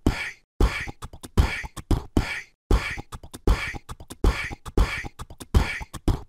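Beatboxed vocal percussion looping as an outro beat: a kick-like low thump about every 0.7 s with breathy snare-like hits between them, the pattern repeating about every two seconds.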